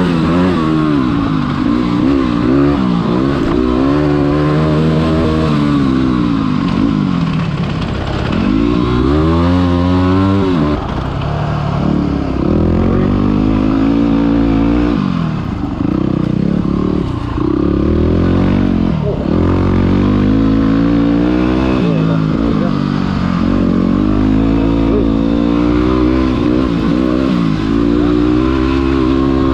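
Motorcycle engine being ridden hard, its pitch repeatedly climbing under throttle and dropping back as it shifts gears or rolls off.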